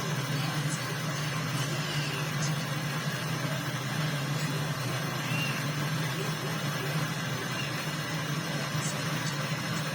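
Electric motor running with a steady low hum under a continuous hiss.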